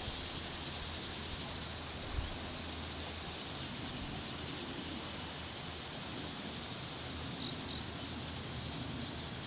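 Steady drone of cicadas, with a few faint, short high chirps near the end.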